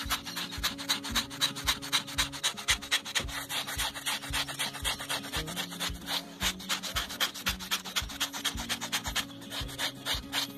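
Knife blade scraping the skin of a slaughtered pig, short rasping strokes several a second, stripping the blackened hair layer off to leave the white hide.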